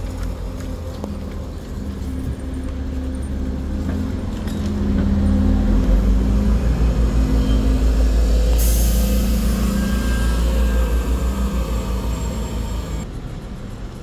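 Mercedes-Benz OC500LE bus's CNG engine running as it pulls round and passes close by, the low rumble swelling about a third of the way in. A sudden air hiss starts just past halfway and cuts off shortly before the end.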